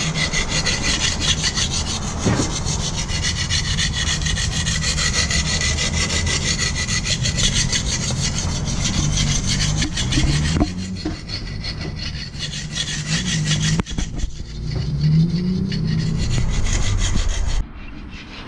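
Hand file rasping back and forth over the edge of a dull steel lawn mower blade in steady repeated strokes, sharpening it. The file is a fine one meant for kitchen knives. The filing eases briefly midway and stops about a second before the end.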